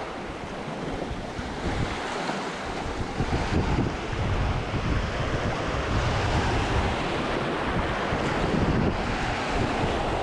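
Wind buffeting the microphone in uneven gusts over the steady wash of sea waves at a high spring tide.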